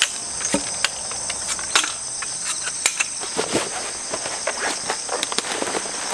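A steady, high-pitched chorus of insects, with rustling of tent fabric and scattered clicks and knocks as a tent is taken down, its pole pulled out and the fabric gathered up.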